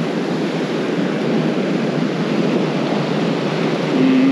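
Surf breaking and washing up the sand, a steady rush, with wind buffeting the microphone.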